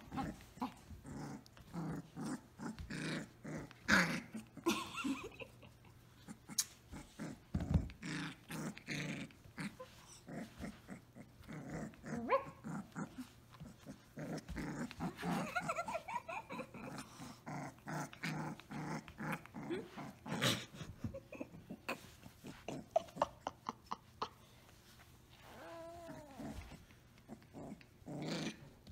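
Samoyed puppy play-growling and yapping in many short, quick bursts while it tussles.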